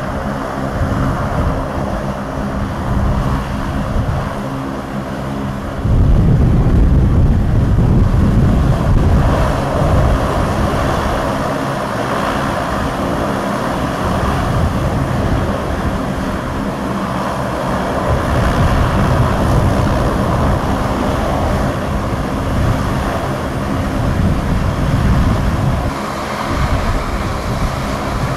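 Saab 340B's GE CT7 turboprop engines running on the ground during an engine run: a steady propeller and turbine drone with several steady tones. About six seconds in, the sound jumps abruptly to a louder, rougher rumble.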